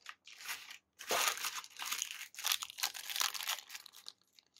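Plastic and foil toy packaging crinkling as it is handled, in a run of irregular crackles from about a second in until shortly before the end.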